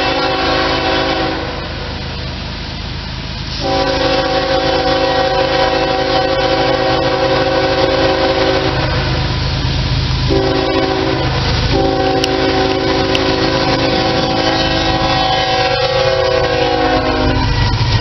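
Locomotive air horn, a chord of several notes, sounding the grade-crossing signal as the train approaches: long, long, short, long, with the first blast ending about a second in. A steady low rumble from the train runs underneath and grows near the end as the locomotive, Norfolk Southern's Conrail heritage GE ES44AC, reaches the crossing.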